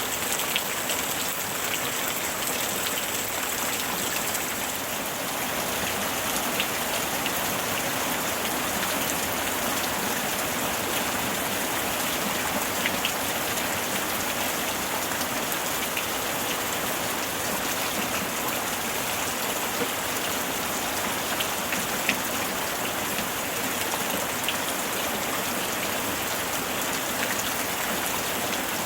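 Steady summer rain falling, an even hiss with scattered individual drops ticking on surfaces.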